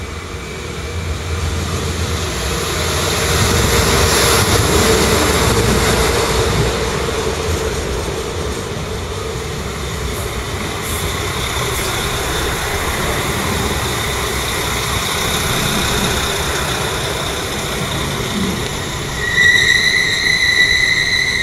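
Abellio Alstom Coradia LINT 41 diesel multiple unit rolling into the platform and braking. Its running noise swells a few seconds in, and near the end the brakes give a loud, steady, high-pitched squeal as it comes to a stop.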